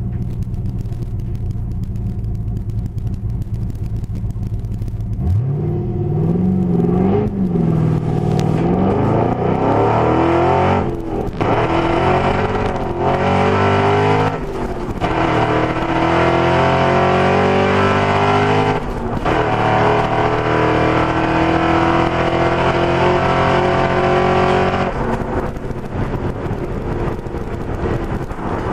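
Supercharged Holden VE SS-V ute's V8 idling, then launching at full throttle about five seconds in, its pitch climbing through several upshifts with brief dips at each change. Near the end the throttle is lifted and the engine note drops away, leaving wind and tyre noise as it runs on at speed.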